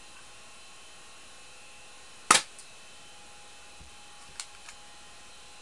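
P.816 spring-powered airsoft pistol firing once with a sharp snap about two seconds in. About two seconds later come two light clicks as the slide is pulled back to cock it for the next single shot.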